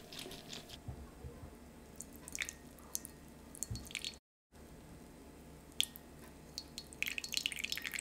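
A lemon half squeezed by hand, giving small wet squishing crackles, then a thin stream of lemon juice pouring from a small jug into syrup in a small pan, with fine dripping crackles densest near the end.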